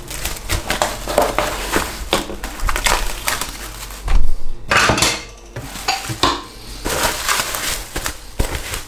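A container of pizza dough being covered and handled: irregular rustling and clattering of the container and its cover, with a louder knock about four seconds in.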